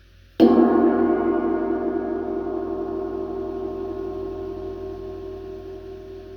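A heavy 22-inch 1920s K. Zildjian Constantinople orchestral cymbal (old stamp) struck once with a mallet about half a second in. It then rings on with many overlapping sustained tones, slowly fading and still sounding at the end.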